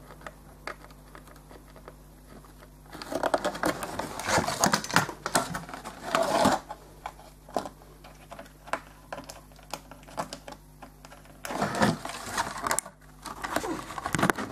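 A plastic cable tie being worked through drilled holes in a plastic RC car body shell: spells of rapid clicking and scraping of plastic on plastic, starting about three seconds in and again near the end, with quieter handling between.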